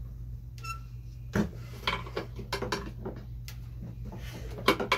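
Metal tools and generator parts clinking and knocking together during disassembly: a run of sharp clatters, loudest about a second and a half in and just before the end.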